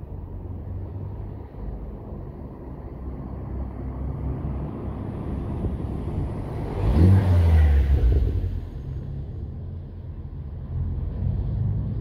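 Ford Focus ST225's turbocharged five-cylinder engine and exhaust as the car drives past. The sound builds as it approaches and is loudest as it passes about seven seconds in, with the pitch dropping. It then eases off and swells again near the end.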